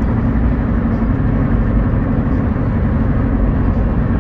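Steady low rumble of a car driving on a highway: tyre and road noise with engine hum, heard from inside the moving car.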